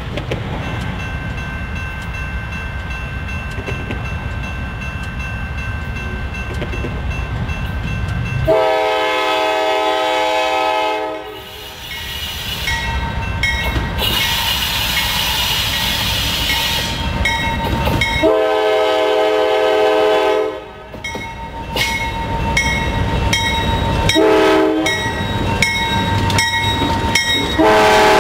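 Norfolk Southern GE C44-9W diesel locomotive's air horn sounding the grade-crossing signal: long, long, short, long, as the train approaches and passes. Under the horn, the locomotives' diesel engines rumble, and near the end the wheels click over the rail joints as the lead units go by.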